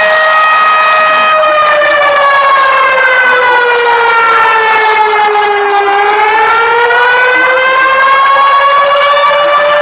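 Warning siren sounding one held tone. It sags slowly in pitch over about four seconds, then climbs back up again.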